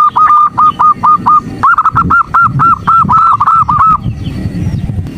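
Female zebra dove (perkutut) calling, a lure call used to stir male zebra doves into singing. Two quick runs of short, clipped notes at one steady pitch, about five a second, stopping about four seconds in.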